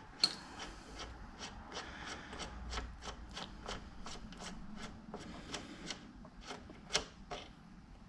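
Hand tools clicking and scraping on the front brake caliper bracket of a motorcycle as its bolt is worked loose: scattered light metallic clicks, unevenly spaced, over a soft rubbing.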